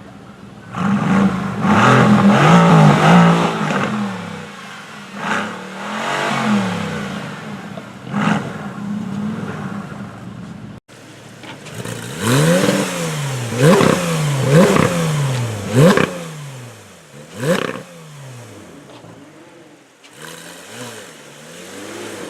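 High-performance car engines revving hard, the pitch climbing and falling with each rev. About eleven seconds in the sound cuts to a run of short, sharp throttle blips in quick succession.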